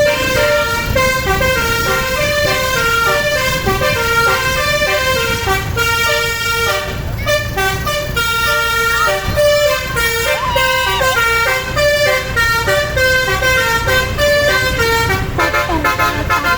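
Bus 'basuri' telolet horn playing a tune: a quick run of steady horn notes stepping up and down with no break, over low engine rumble.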